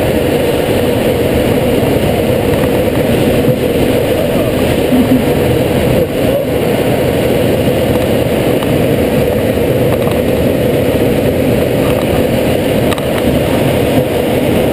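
Steady rush of air inside a glider's cockpit in flight under aerotow, mixed with the steady drone of the tow plane's engine.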